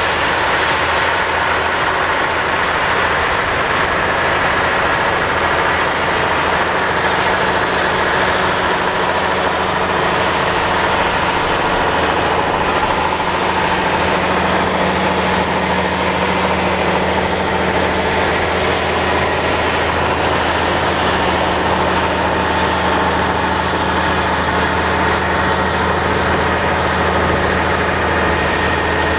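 A 550 hp Versatile DeltaTrack tractor's diesel engine drones steadily under load as it pulls a 12-bottom plow, with no change in pitch or loudness.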